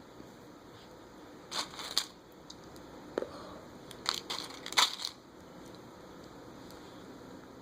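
Rustling, crinkling handling noise in two bursts about a second long, with a single light click between them.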